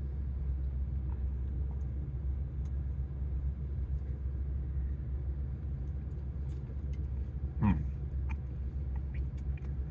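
Steady low rumble of an idling truck engine heard from inside the cab, with a few faint ticks and one short louder sound about three-quarters of the way through.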